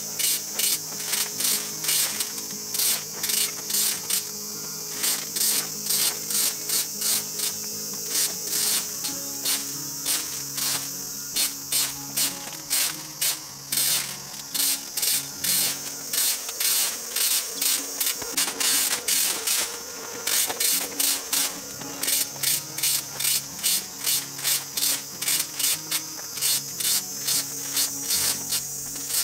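A rake scraping and sweeping twigs and dry leaves across an asphalt road surface in quick repeated strokes, with a few short pauses, over light background music.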